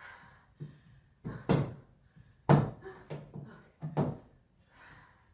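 A metal ladder hooked against a wall knocking and clanking under a person's weight as she climbs and shifts on its rungs: about eight separate thuds, the loudest about halfway through.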